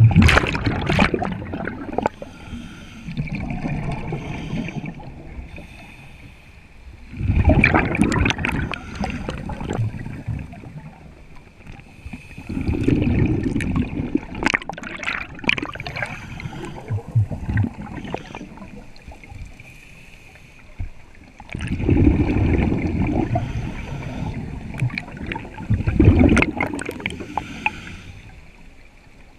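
Scuba regulator breathing heard underwater: loud gurgling bursts of exhaled bubbles every several seconds, with quieter stretches in between.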